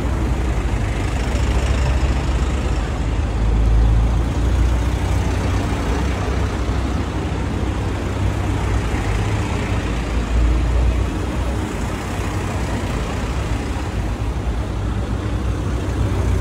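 Hyundai minibus engine running as the bus drives past at low speed: a steady low rumble with road noise.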